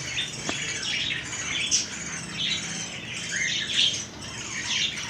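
A flock of Australian parrots chattering with many short, overlapping chirps and squawks.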